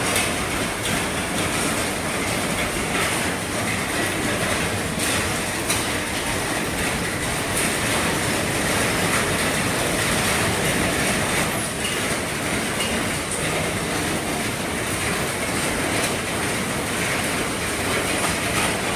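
Heavy rain on an RV's roof: a steady, dense patter with countless individual drop hits.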